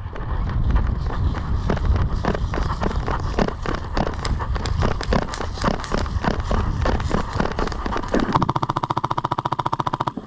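Airsoft guns firing: a scatter of irregular sharp pops, then a little past the eight-second mark a fast, even full-auto burst from an electric airsoft rifle, its gearbox whining under the rapid clicks.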